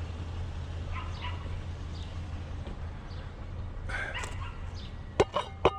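A dog whining and yipping softly, twice, over a steady low hum; a couple of sharp clicks near the end.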